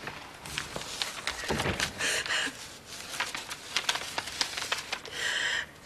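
Paper envelope rustling and crinkling as it is handled, with scattered light clicks and knocks and two short hissy rustles, one about two seconds in and one near the end.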